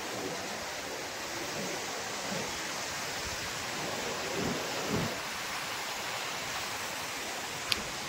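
Steady hiss of surf washing on a beach, with a couple of low bumps about four and a half and five seconds in and a single sharp click near the end.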